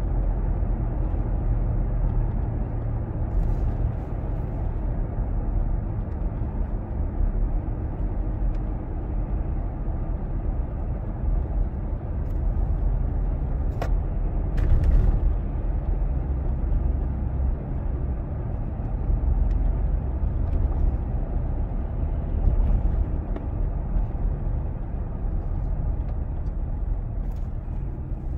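Steady low rumble of a moving car's road and engine noise heard from inside the cabin, with a brief click or knock about halfway through.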